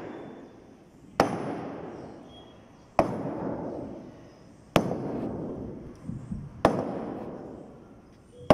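Heavy wooden mallet striking the chengal-wood planks of a traditional boat hull, about one blow every two seconds, each a sharp knock with a long echoing decay under a concrete bridge. Wood is used on wood because an iron hammer would split the chengal.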